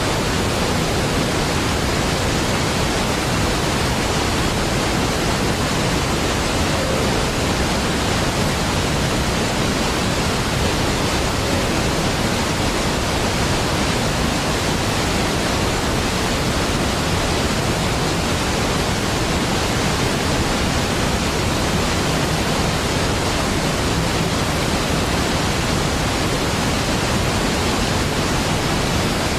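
A large waterfall: a steady, unbroken rush of falling water, deep and even like white noise.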